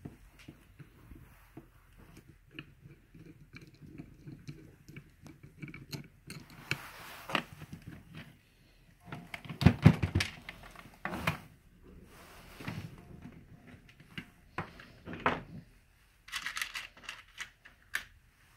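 Small parts of a water softener control valve being handled by hand: scattered clicks, taps and rustling, with a louder cluster of knocks about ten seconds in.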